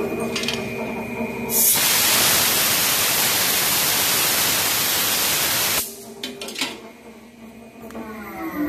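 CNC lathe finishing a thread-cutting pass: the spindle runs with a steady hum, then a loud, even hiss starts suddenly about two seconds in and cuts off abruptly about four seconds later. After a few clicks, the machine's hum falls in pitch near the end as the spindle slows.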